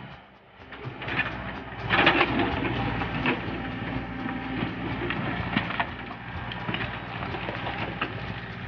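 Backhoe's diesel engine running steadily, with irregular clanking knocks from the machine working; the loudest comes about two seconds in.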